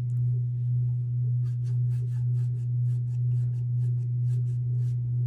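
A steady low hum throughout, with faint quick scratching strokes of a paintbrush spreading wet Mod Podge over a glitter-coated tumbler, about three strokes a second from about a second and a half in.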